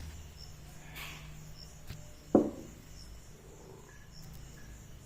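A single sharp knock about two and a half seconds in, over a steady low hum. A faint short high chirp repeats about every second and a quarter.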